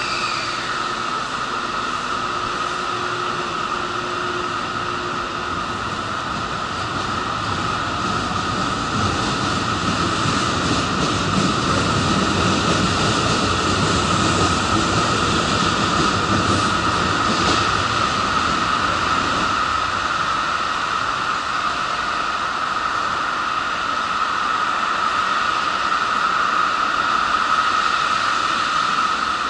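A metro train pulling out of the station, its rumble building about a third of the way in and easing off after about two-thirds, over a steady high hum.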